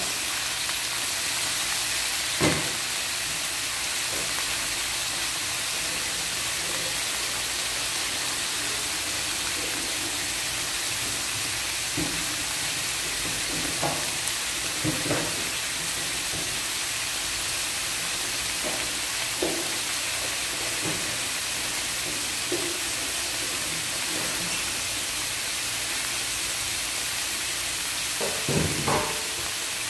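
Raw pork bone pieces frying in hot oil in a wok, a steady sizzle at the start of searing. A few short clicks and pops come through it here and there.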